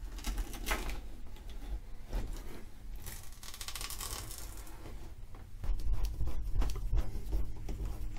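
A razor blade scraping and slicing along the caulk bead around a bathtub faucet's mounting plate, a dry scratching sound, with handling knocks and clicks in the second half.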